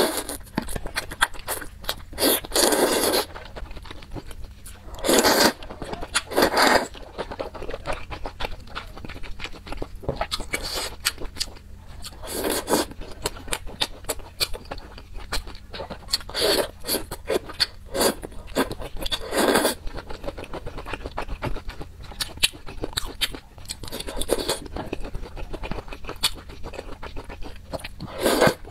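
Close-miked mouth sounds of eating spicy, saucy food: wet chewing clicks all the way through, with about ten louder slurps spread out, each lasting around half a second to a second.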